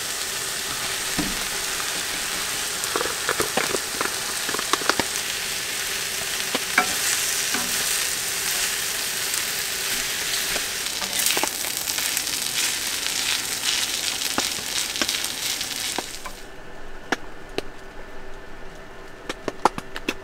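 Fried rice sizzling on a hot griddle, stirred and scraped with a spatula in short taps and scrapes. The sizzle drops away sharply about 16 seconds in, leaving only scattered taps.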